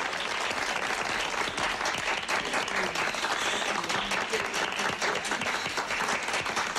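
Audience applauding, a dense steady clapping that runs on without a break.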